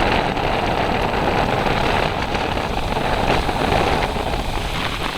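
Steady rush of ocean surf with wind rumbling on the microphone.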